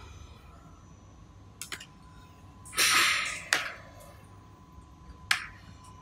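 A grooving machine runs with a faint steady hum and tone while a cardboard sheet is fed through its V-grooving cutters: a short loud rasp of under a second about halfway through, with sharp clacks of board before and after it.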